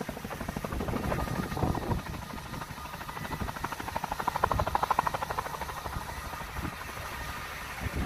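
Firefighting helicopter flying overhead, its rotor blades chopping in a rapid steady beat that swells louder about halfway through.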